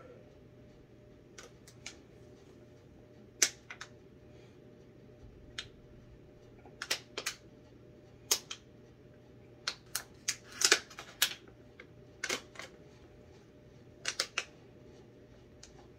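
Thin plastic water bottle crackling in sharp, irregular clicks as it is gripped and tipped up to drink from, over a faint steady hum.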